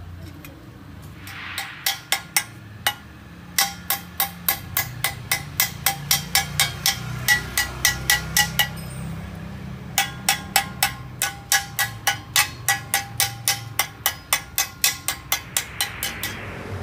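Hammer striking a steel motorcycle exhaust muffler (a first-generation Suzuki Satria silencer) while its pipe is fitted, in quick runs of about four blows a second, each blow ringing briefly like a bell. The hammering pauses for about a second near the middle.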